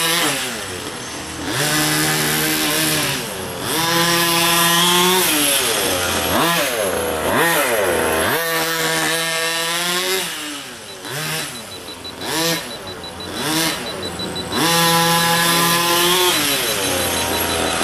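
Two-stroke gas engine of a large-scale RC truck with a 30.5 cc big bore kit, revving repeatedly during a break-in heat cycle. It climbs to high revs and holds there, drops back, then climbs again. It runs more unevenly and quieter for a few seconds past the middle.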